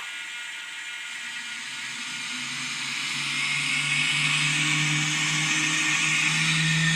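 Electronic jet sound board of a Skymaster F-18 Super Hornet RC model playing a simulated turbine spool-up through its speaker: a hiss and a low hum that build up over the first few seconds, then run steady.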